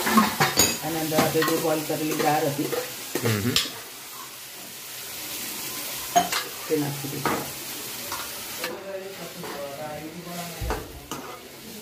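Steel spoon stirring and scraping through a sizzling tomato masala in a nonstick kadai, with a few sharp clinks of the spoon against the pan as cooked dal is spooned in and mixed.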